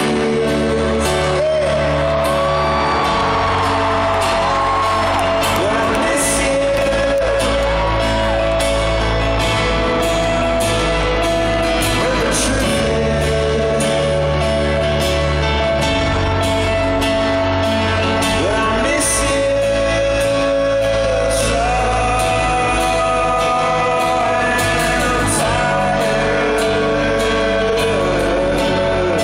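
Live concert music: a male singer over piano and band, filmed from the audience in a large arena.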